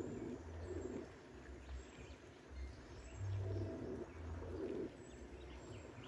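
Dove cooing in low phrases about half a second long: a couple near the start and two more a little past the middle. Faint high chirps of small birds come through in between.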